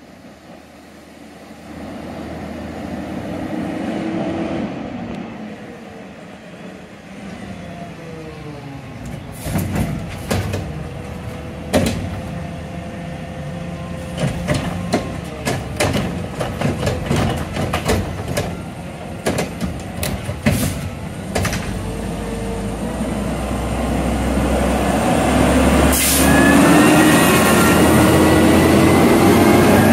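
Mack LR garbage truck with a McNeilus Meridian body and Curotto Can arm, its natural-gas engine running and rising in pitch as it pulls up. Through the middle the Curotto Can tips a wheeled cart, with a run of sharp bangs and clatter. Near the end the engine grows louder as the truck moves off past, with a short hiss of air late on.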